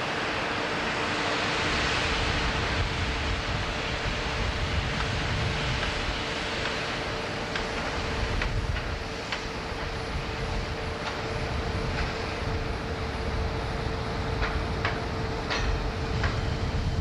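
Steady industrial noise with a constant hum underneath, and scattered sharp metallic clicks in the second half.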